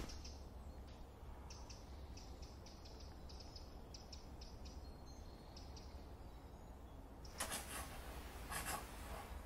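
Faint small birds chirping in a quiet forest soundscape. Near the end come two scratchy rubbing rustles.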